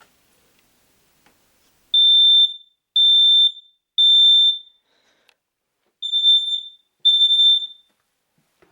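Smoke alarm sounding when its test is pressed: a high-pitched beep three times, about a second apart, then a pause and two more beeps.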